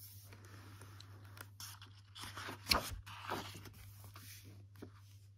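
Pages of a hardback picture book being turned and smoothed flat by hand: soft paper rustling and sliding with a few light flaps, the sharpest about two and a half seconds in.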